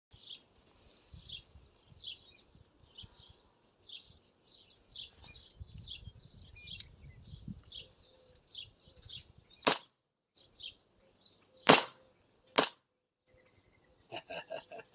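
CO2-powered 2011 Combat Master airsoft pistol fired three times, each a sharp crack; the last two come less than a second apart and the middle one is the loudest. A run of faint high chirps goes on underneath.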